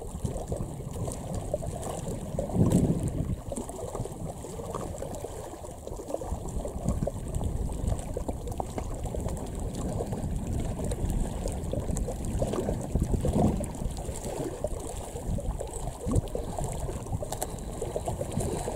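Wind buffeting the microphone: a low, noisy rumble that swells in gusts about three seconds and thirteen seconds in.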